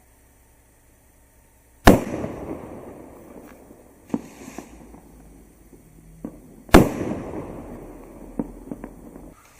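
Large firework rockets bursting in the air: two loud shell breaks about five seconds apart, each followed by a long fading tail, with a few smaller pops after each break.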